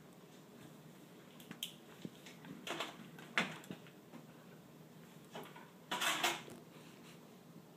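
A plastic spoon clicking and scraping in a small plastic yogurt cup, with the cup knocking on a plastic highchair tray. Scattered light clicks, with louder clatters about three and a half and six seconds in.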